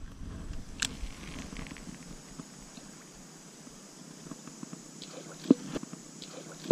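Abu Garcia Black Max 3 baitcasting reel being cranked as a lure is retrieved: a soft whirring, with grass rustling and a few sharp clicks and knocks, the loudest about five and a half seconds in.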